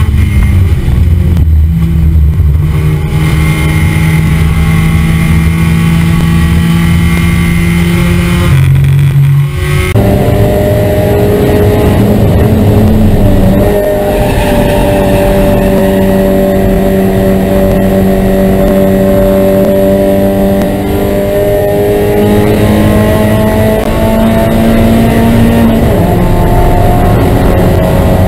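Race car engine held at high revs, heard from inside the car. Its pitch holds fairly steady with slow drifts and a few small steps, and the note changes character abruptly about ten seconds in.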